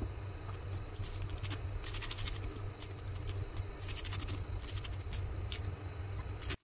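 Kitchen knife chopping chives on a cutting board: quick runs of light taps and scrapes from the blade, over a steady low hum. The sound cuts off suddenly near the end.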